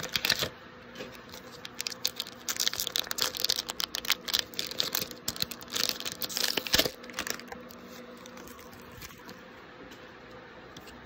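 Crinkly foil booster-pack wrapper being torn open and handled, a run of tearing and crackling rustles that stops about seven and a half seconds in.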